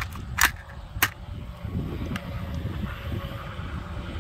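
AR-15 magazine being inserted and seated in the magazine well: two short, sharp clacks about half a second apart, near the start.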